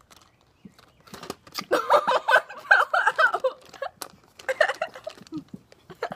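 Chewing and crunching of mouthfuls of Warheads hard sour candies, with many sharp clicks, mixed with muffled laughter through full mouths starting about a second in.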